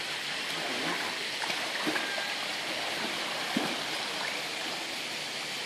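Steady rush of running water, like a stream or waterfall.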